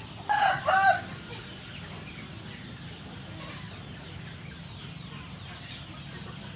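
A chicken squawking twice in quick succession, loud and short, over faint bird chirping.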